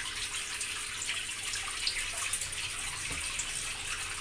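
Kitchen tap running steadily into a sink while boiled macaroni is drained through a small steel strainer, with a few light metal clinks.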